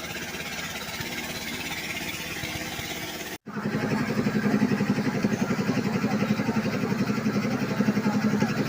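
A small engine running steadily, with a quieter engine hum before a sudden break about a third of the way in, then a louder, close, rapidly pulsing engine sound.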